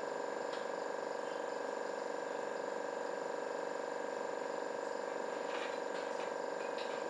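A steady machine or electrical hum made of several constant tones, with a few faint clicks near the end.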